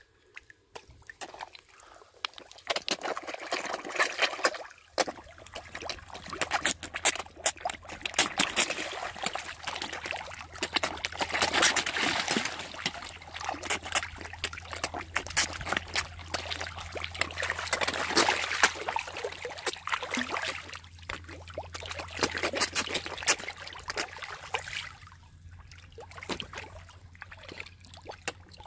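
A shoal of carp feeding on bread at the surface: constant splashing, with sucking, slurping clicks as mouths break the water. It builds from a quiet start and thins out near the end, over a low steady hum that comes in about five seconds in.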